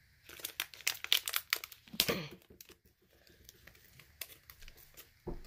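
Plastic wrapper of a trading-card pack crinkling as it is handled and pulled open by hand: an irregular run of sharp crackles.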